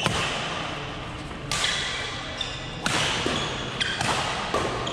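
Badminton rally: sharp racket-on-shuttlecock hits about every second and a half, five in all, each echoing in the hall. Short high squeaks fall between the hits.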